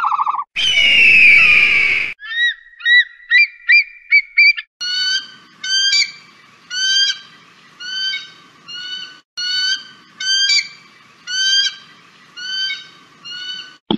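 Bird-of-prey calls: a harsh screech about half a second in, then a quick run of short chirps, then sharp calls repeated about once a second.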